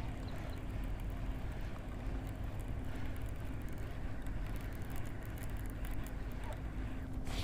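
A steady low rumbling hum with one constant tone running through it, like a running motor.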